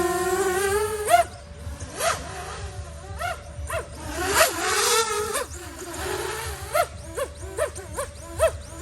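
A DJI FPV drone's motors spinning MasterAirscrew 5-inch bi-blade propellers hum in a steady whine that rises slightly in pitch, then drop away sharply about a second in. After that, a fainter steady tone runs on under a string of short animal calls, each rising and falling in pitch, coming irregularly about one or two a second.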